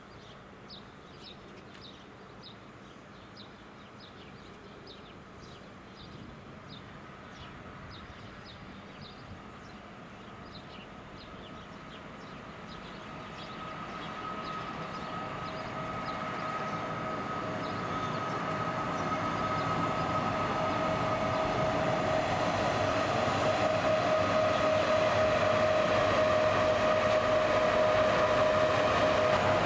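A train approaching and growing steadily louder, with a steady whine that strengthens as it comes closer.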